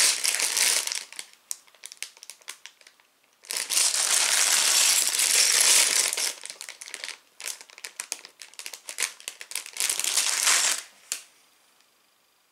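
Clear plastic Lego parts bags crinkling as they are handled and held up, with the bricks inside shifting in small clicks. The rustling comes in bouts, the longest and loudest a few seconds in, and stops near the end.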